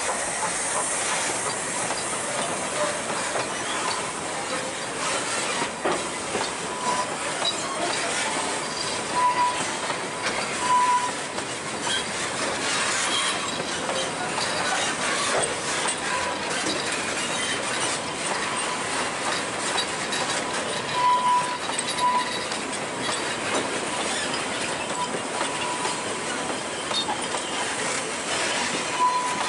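Narrow-gauge wooden passenger carriages rolling past on a curve: a steady rumble of wheels with clicks over the rail joints, and several brief high squeals from the wheel flanges.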